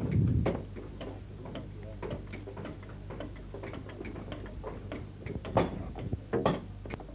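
Hand tools striking hardwood: irregular knocks and taps, several a second, from timber being chopped and hacked by hand, over a steady low hum. A louder thump comes at the very start.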